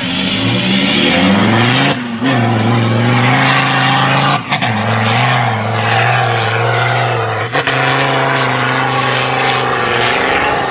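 A 4x4's engine held at high revs under heavy load as it drives up a sand dune, a steady loud drone with brief drops about two, four and a half and seven and a half seconds in.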